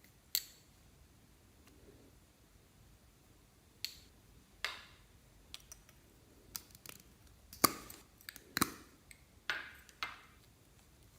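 Clear slime being worked by hand, giving about a dozen sharp, irregular clicks and pops, the loudest in a cluster in the second half.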